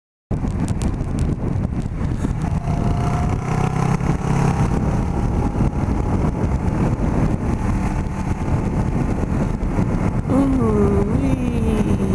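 Kawasaki Ninja 650R's parallel-twin engine running on the move under heavy wind rush. About ten seconds in the engine note climbs sharply, dips briefly, climbs again and then slowly falls away.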